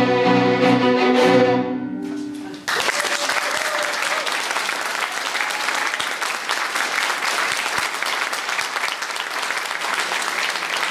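A group of young violinists with piano plays the held final chord of a piece, which dies away about two and a half seconds in. Audience applause then breaks out suddenly and continues steadily.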